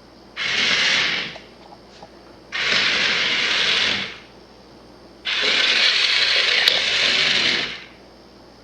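Small electric motor of a remote-control cat exerciser toy whirring in three bursts, each a little longer than the last, as it is driven from the remote. The toy only spins around in circles.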